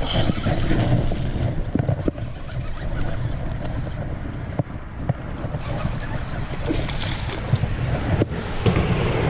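Wind buffeting the microphone, a steady rumbling noise, with a few light clicks scattered through it.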